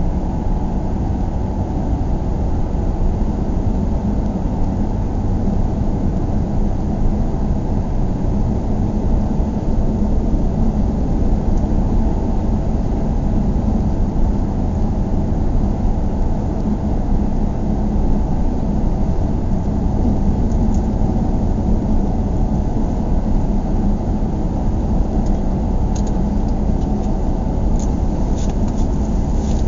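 Car driving at a steady pace: an even low rumble of road and engine noise, with a few faint ticks near the end.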